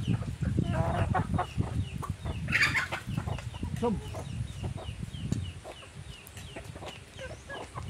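Chickens clucking, with a steady run of short, high chirps about three times a second. A low rumbling noise underneath fades out about five seconds in.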